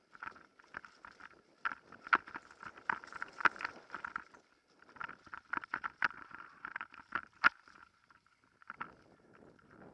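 Mountain bike rattling over rough singletrack: a fast, irregular run of knocks and clicks from the bike and the rider's gear, with a faint steady high whine underneath. The knocks thin out near the end.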